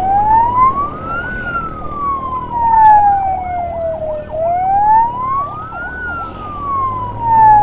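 Emergency-escort wail siren, slowly rising for about a second and a half and falling for about three seconds, twice over. A fainter, faster warbling siren runs underneath, over a low engine hum.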